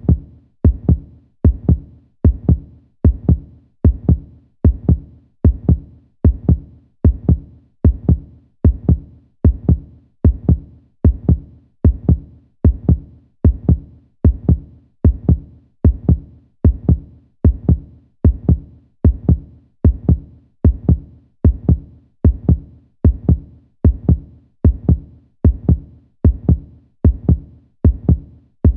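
Heartbeat sound effect: deep, paired lub-dub thumps repeating in a steady, even rhythm.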